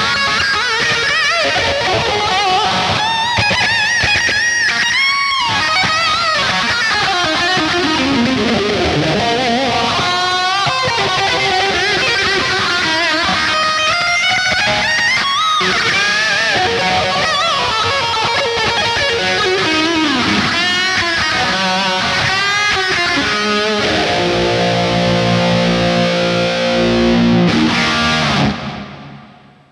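EVH 5150 electric guitar played through an amp: fast lead runs full of sweeping pitch bends and dives. Near the end it moves into a rhythmic, repeated low riff, which then fades out.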